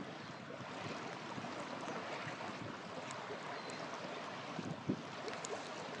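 Wood campfire burning, crackling and popping now and then, with one sharper pop about five seconds in, over a steady rush of running water.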